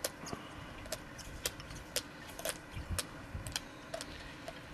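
German Shepherd chewing a Chewber chew toy: irregular sharp clicks and crunches of its teeth biting into the toy, about two a second, as it tears the toy apart.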